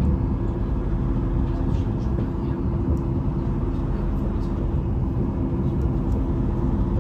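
Steady low rumble and hum of a moving Vy electric passenger train, heard from inside the carriage.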